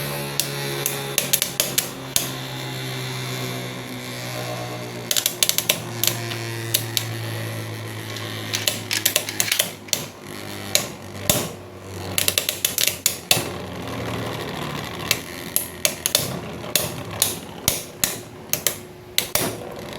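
Two Beyblade X spinning tops battling in a plastic stadium: a steady whirring hum that slowly drops in pitch as the tops lose speed, with many sharp clacks as they hit each other and the stadium walls, some in quick rattling runs.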